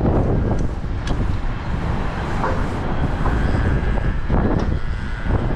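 Wind buffeting the microphone in a steady low rumble, with a few light knocks scattered through. A faint high steady tone joins in a little past halfway.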